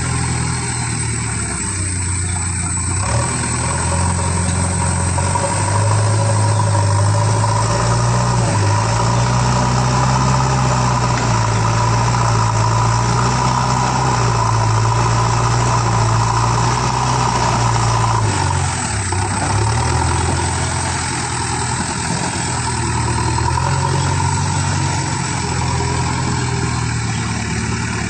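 A JCB machine's engine running steadily, its note rising a little a few seconds in, dropping briefly about two-thirds of the way through, then coming back up as the load changes.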